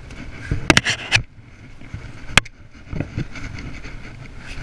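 Sharp handling knocks from a fishing rod and spinning reel being gripped and moved: a quick cluster of four or five about a second in, then one more a little past two seconds, over a steady low rumble.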